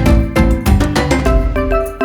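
Background music with a steady beat: pitched, keyboard-like notes over a heavy bass that drops out near the end.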